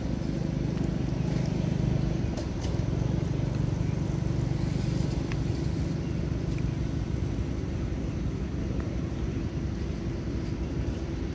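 Low, steady engine rumble of a motor vehicle running nearby, a little louder in the first half and easing slightly after.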